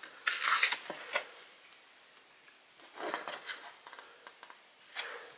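Pages of a photo book being turned by hand: paper rustling and flapping in a few short bursts, about half a second in, around three seconds in and again near the end.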